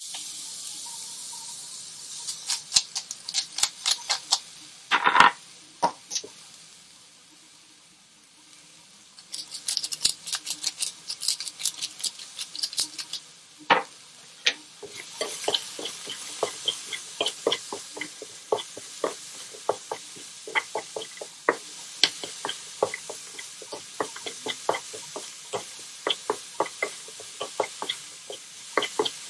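Carrot and zucchini strips sizzling in a frying pan, with a fork clicking and scraping against the pan as they are stirred. The clicks come in a long, fairly regular run through the second half, and there is a brief ringing clink about five seconds in.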